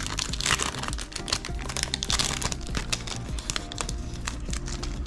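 A hockey trading-card pack wrapper crinkling and tearing as it is pulled open and the cards are slid out: a fast patter of small crinkles that thins out near the end. Background music plays underneath.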